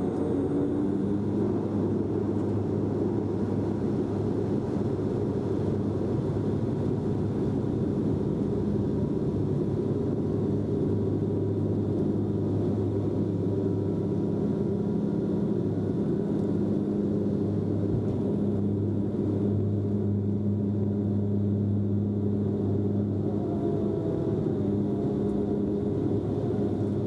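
Cabin noise of a Bombardier Dash-8 Q400 turboprop at take-off power during the take-off roll and lift-off: a steady propeller drone with a low hum and its octave above, over dense engine and airflow noise.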